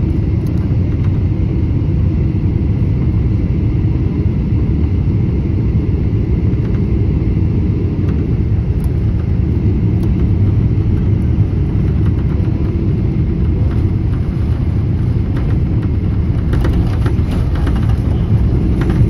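Boeing 777-300ER cabin noise heard from a window seat during landing: a steady low rumble of engines, airflow and then runway. A brighter rushing noise joins about three-quarters of the way through.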